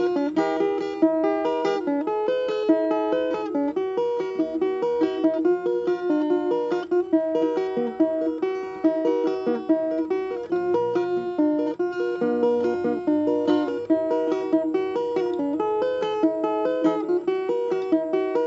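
Plucked string instrument playing a quick melody of closely spaced single notes over a ringing middle register, with a few lower bass notes about halfway through.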